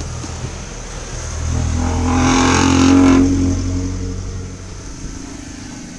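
A motor vehicle passing by: its engine sound builds to a peak about three seconds in and then fades away, over a steady low hum.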